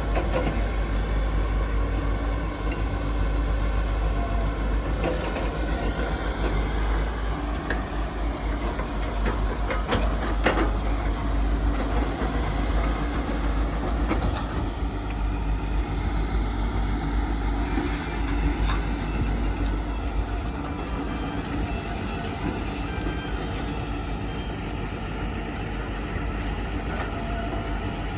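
A heavy vehicle engine running steadily with a deep rumble, with a few brief clanks along the way.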